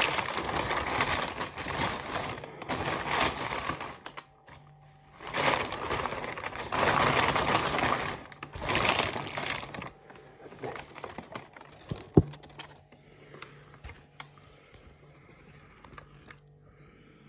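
White paper wrapping of a takeaway fish-and-chips parcel being torn open and unfolded, crinkling and rustling in three loud bursts over the first ten seconds. After that only light rustles and one sharp click about twelve seconds in.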